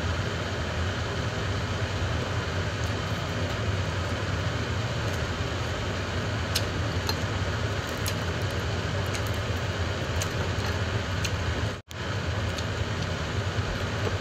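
Steady whirring hum of a running household appliance, with a few faint clicks from about six seconds in and a brief dropout to silence near twelve seconds.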